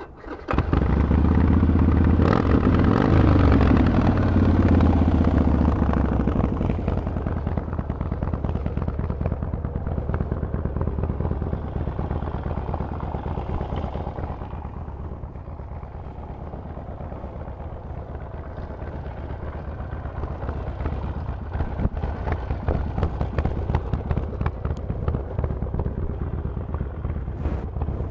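Harley-Davidson Forty-Eight's V-twin with a Vance & Hines exhaust starting up: it catches at once and revs high, the revs fall away over the next few seconds, and it settles to idle. It grows gradually louder over the last several seconds.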